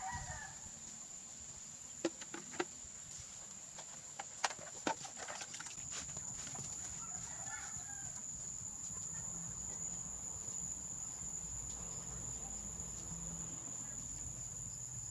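Farmyard ambience: chickens clucking now and then over a steady high-pitched insect drone, with a few sharp clicks about two to five seconds in.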